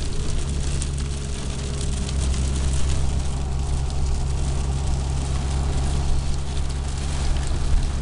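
Inside a car driving in heavy rain: a steady low engine and road hum, with rain pattering on the roof and windows.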